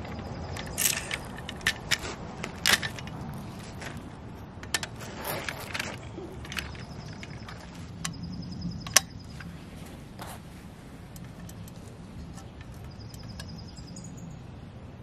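Scattered clicks and knocks from a toy roll-off garbage truck and its container being handled by hand, the sharpest knock about nine seconds in. The last few seconds hold only steady background noise.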